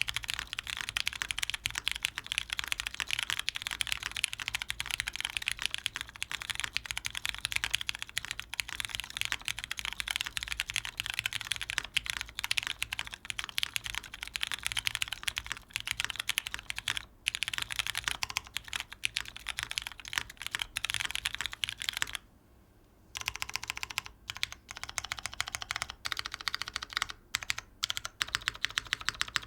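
Fast, continuous typing on a dnworks Ryujin custom mechanical keyboard with lubed Cherry MX Brown tactile switches, GMK keycaps and a polycarbonate plate in an O-ring mount. The keystrokes stop briefly about three quarters of the way through, then resume.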